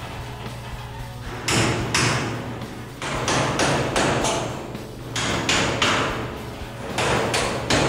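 Hammer striking a punch to drive out the door hinge pins of a 1928 Model A Ford: about a dozen sharp metal hits, in clusters of two to four, each with a short ring, over a steady low hum.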